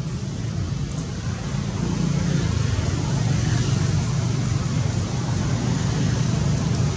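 Steady low background rumble that grows a little louder about two seconds in.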